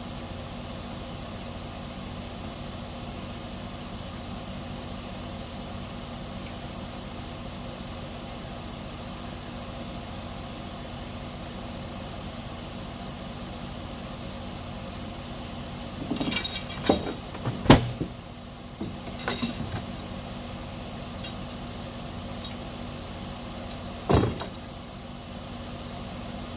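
An engine idling steadily. About two-thirds of the way in comes a cluster of metal clanks and knocks, then one sharp knock near the end.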